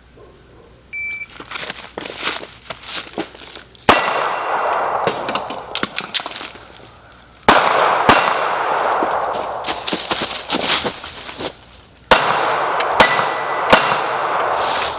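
SIG P320 9mm pistol fired five times: single shots about four seconds in and midway, then three quick shots near the end. Each shot is followed by a ringing metallic clang of steel.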